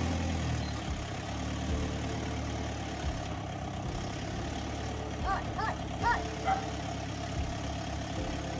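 A steady low mechanical hum of a running motor, with a few short high chirps about five to six seconds in.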